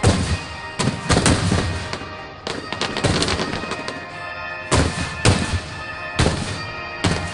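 Aerial fireworks shells bursting one after another, sharp booms and crackles in clusters every second or so, over music playing throughout.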